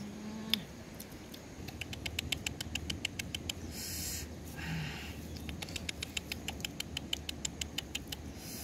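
Rabbit nibbling food from a hand: quick, crisp chewing clicks, several a second, in two runs with a short pause near the middle.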